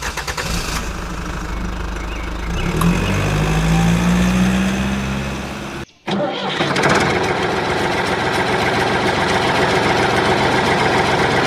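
An engine running and revving, its pitch rising about three to five seconds in. It cuts off abruptly near the middle, then an engine sound runs on steadily.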